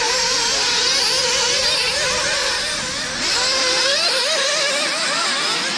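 Several nitro-powered RC cars' small glow-fuel engines racing together, each high-pitched engine note rising and falling as the cars accelerate and lift off, the notes overlapping.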